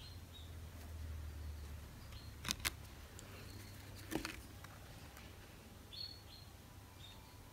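Oracle cards being handled: a quick pair of clicks about two and a half seconds in and another tap about a second later as one card is moved aside and the next brought forward. Short high chirps recur every second or two in the background.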